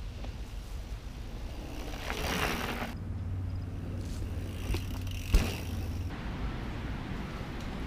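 Trance 2 mountain bike riding past on a dirt trail: tyre noise swelling about two seconds in, then a single sharp knock about five seconds in, the loudest sound, as the bike goes by.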